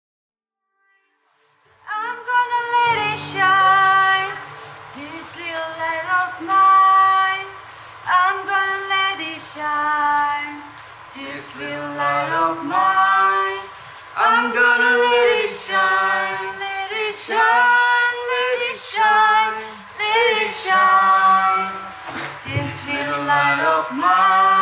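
A woman singing a slow song in phrases over sustained instrumental backing, starting about two seconds in after silence.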